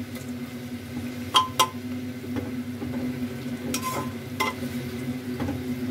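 Metal ladle stirring thick mutton masala in an aluminium pressure cooker, knocking against the pot with sharp clinks that ring briefly, twice about a second and a half in and again around four seconds in. A steady hum from the kitchen exhaust fan runs underneath.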